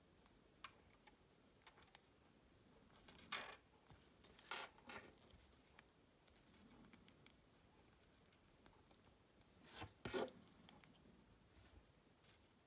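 Quiet handling noises from opening a Kinder Surprise egg and its toy: a few short rustling, scraping bursts about three, four and a half and ten seconds in, with small clicks between them.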